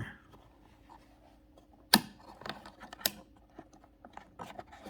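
Sharp little metallic clicks and taps from a retainer clip being worked into a Camaro T-top lock cylinder assembly, with two louder clicks about two and three seconds in.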